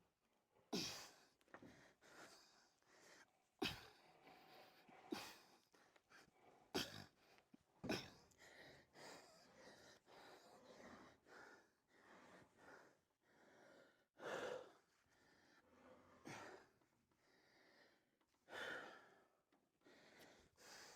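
A man's faint heavy breathing and exhaling, with a few sharp knocks in the first eight seconds.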